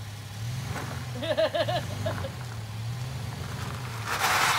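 Toyota FJ Cruiser's 4.0-litre V6 running at a low steady idle as the truck crawls over rocks, a constant low hum. A short voice sounds about a second in, and near the end a brief loud rough rushing noise is the loudest thing.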